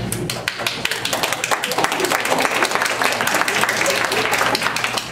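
Audience applauding: many hands clapping in a dense, even patter that stops near the end.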